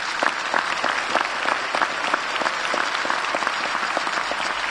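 Audience applauding: dense, steady clapping with individual sharp claps standing out.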